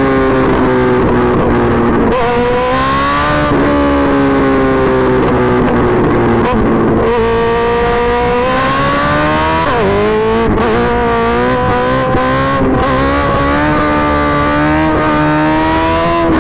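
Suzuki GSX-R1000R inline-four engine pulling hard through the gears: its note climbs steadily and drops sharply at each upshift, over and over.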